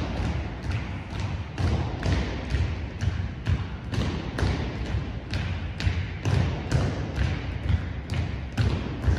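A drill team's boots stamping in unison on a wooden gym floor as they march, about two heavy thuds a second in a steady rhythm.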